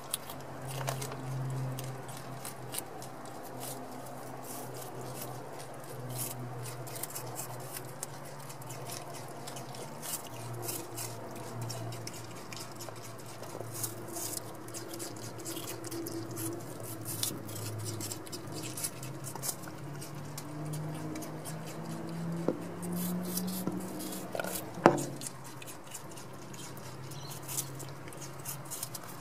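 Juvenile common brushtail possums chewing and munching pieces of apple and vegetable close up, a steady run of small wet clicks and crunches. A low hum wanders in pitch underneath and rises shortly before a single sharp knock about 25 seconds in, the loudest sound.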